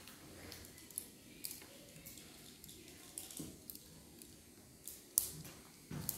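Soroban abacus beads flicked by fingers: scattered sharp clicks at uneven intervals, the loudest about five seconds in.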